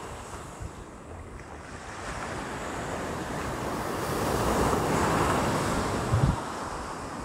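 Ocean surf breaking on a sandy beach: a wave rolls in and breaks, the wash swelling to its loudest about two-thirds of the way through and then easing. A brief low thump near the end.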